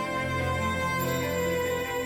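Slow orchestral score with sustained strings and a low bass note, the pitch of the held chords changing about a second in.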